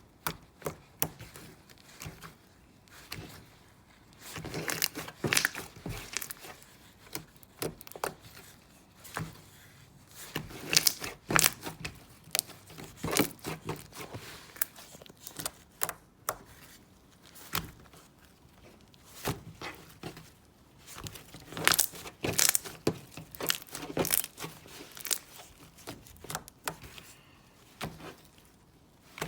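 Slime being squeezed, stretched and pressed by hand, making irregular runs of crackling and popping clicks with short pauses between them.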